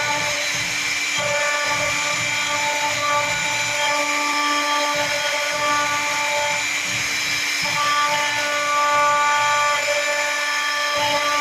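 Large-format CNC machine running, its motors whining in several steady tones that change every second or two as the axes move, over a steady hiss.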